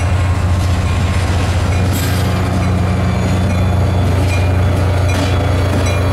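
Metro-North EMD F40-series diesel locomotive passing close by as it pulls into the station, its engine running steadily with a loud, deep hum. A few sharp clicks come from the wheels on the rails, about two seconds in and again near the end.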